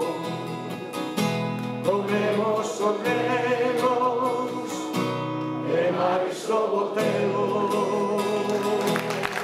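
A man singing a slow song to his own acoustic guitar accompaniment, holding long wavering notes over the chords.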